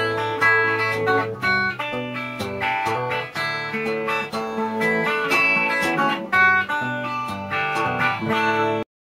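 Background music led by guitar, a run of plucked and strummed notes, cutting off abruptly near the end.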